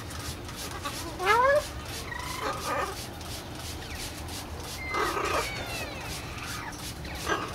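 Blue-and-gold macaw calling: one loud rising call about a second in, then shorter calls and falling squeaks. A trigger spray bottle misting the bird hisses in short squirts under the calls.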